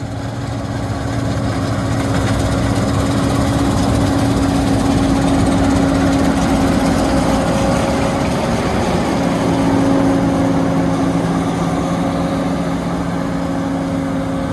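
John Deere 9510 Maximizer combine running steadily while harvesting wheat, its 8.1-litre turbocharged six-cylinder diesel giving a steady hum with a held tone. It grows louder over the first two seconds, and the tone fades for a moment about eight seconds in before returning.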